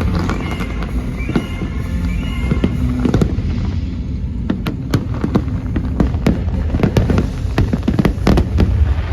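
Fireworks bursting in quick succession, a dense run of sharp cracks and bangs that gets thicker in the second half, over a steady low rumble. Show music plays underneath.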